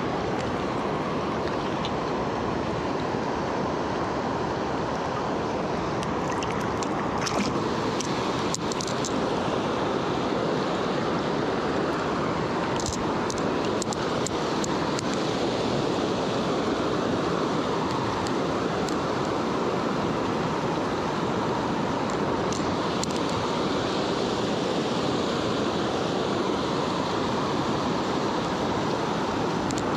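Steady rush of fast river water tumbling over riffles and rocks, with now and then a faint click.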